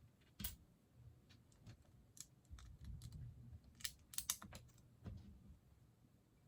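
Faint, scattered clicks of plastic Lego pieces being handled and pressed together, with a small cluster of quick clicks a little past the middle.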